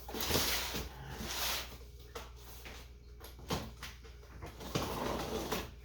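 Putty knife prying and scraping at a tough-to-open package, with irregular rustling and scraping and a couple of sharp clicks.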